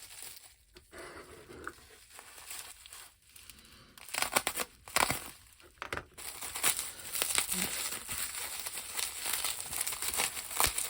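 Packaging crinkling and rustling as a kit part is unwrapped by hand. It is faint at first, then turns to louder, busy crinkling about four seconds in.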